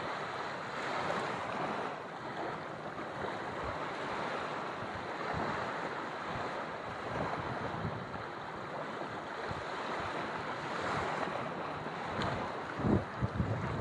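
Small waves breaking and washing up on a sandy beach: a steady surf wash that swells and eases every few seconds. Near the end a few wind gusts buffet the microphone.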